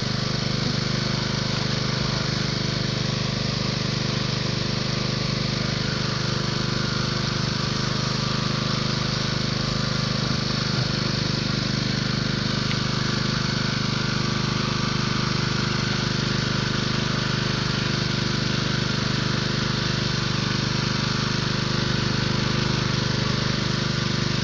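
A motor running with a steady, unchanging low drone.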